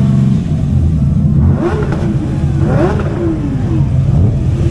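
Sports car engines running at low speed close by with a deep steady burble. Partway through there are revs, one climbing and dropping back about two and a half to three seconds in.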